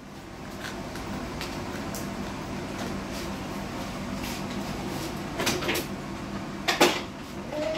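Kitchen sounds: a steady hum and hiss, with a couple of clattering knocks about five and a half seconds in and a louder sharp knock near the end.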